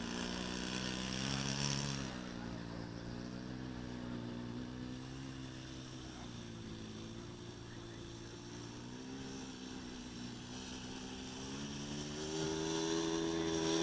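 Radio-control model airplane engine and propeller running in flight, with a steady drone whose pitch drifts down and back up as the plane moves around. It grows louder again near the end.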